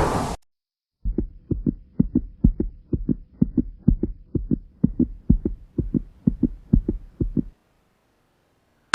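Heartbeat-style thumping sound effect: a steady run of low thumps, about three to four a second, over a faint hum. It cuts off abruptly shortly before the end.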